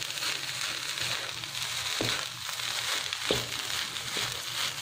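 Rice stir-frying over high heat in a nonstick pan: a steady sizzle as a wooden spatula tosses and scrapes it, with a few sharp knocks of the spatula against the pan.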